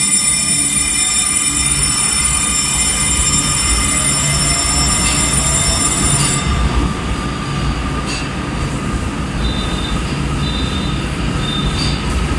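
Beijing subway BDK06 train with CRRC Qingdao Sifang SRTSP-71P-200S15 IGBT-VVVF traction, moving along the platform: traction inverter and motor whine with a rising tone over a steady rumble of wheels on rail. A high-pitched whine cuts off suddenly about six seconds in.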